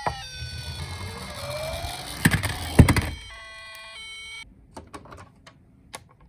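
Electronic sounds and plastic handling noises from a toy ambulance. A falling electronic tone plays at the start, then come the loudest part, sharp plastic clicks and knocks about two to three seconds in, and a steady electronic tone a little after three seconds. A few faint clicks follow.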